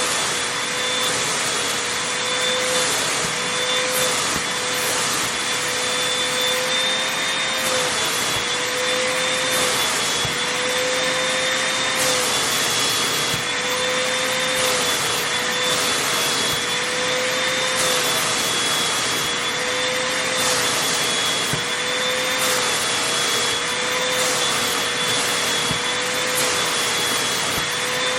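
Vacuum cleaner running steadily over fabric, a constant motor whine over rushing suction, its pitch dipping slightly every second or two as the head is pushed back and forth.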